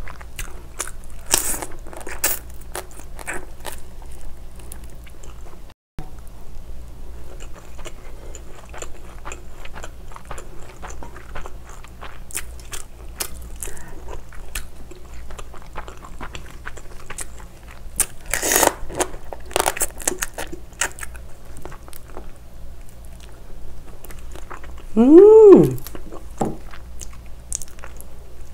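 Close-up eating sounds of raw marinated crab: shells cracked and pulled apart by hand, with crunching, biting and chewing and many small wet clicks. Near the end a short hum rises and falls in pitch, the loudest moment.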